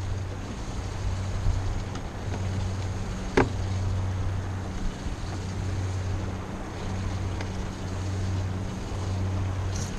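Steady low hum of a fishing boat with a wash of wind and water noise, and a single sharp knock about three and a half seconds in.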